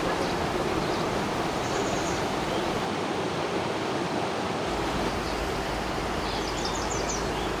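Steady rushing of a rocky river's white-water rapids.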